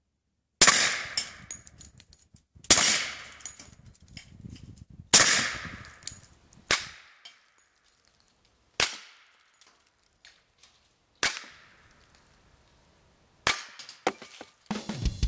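Suppressed H&K USP .45 Tactical pistol fired seven times at an unhurried pace, about two seconds apart. Each shot is a sharp crack through the Advanced Armament suppressor, followed by a short decaying ring. Music starts right at the end.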